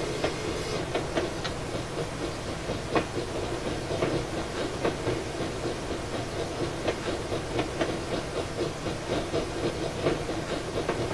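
Large-scale model Shay geared locomotive and its train running over track: a steady running rumble with frequent irregular clicks from the wheels on the rails.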